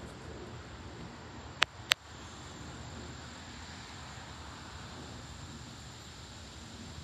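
Wind in leafy trees: a steady rustling hiss with a low rumble, under a faint steady high-pitched tone. Two sharp clicks come close together a little under two seconds in.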